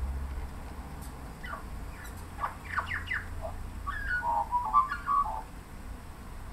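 Australian magpie singing: a quick run of short, sharp falling notes a second or two in, then a warbling phrase of notes jumping up and down in pitch about four seconds in.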